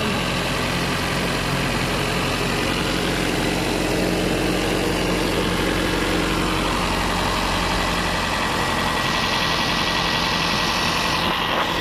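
Toyota 4A-FE four-cylinder engine idling steadily. The car is hard to start and its idle drops once hot, and the mechanic thinks the ignition timing sounds advanced.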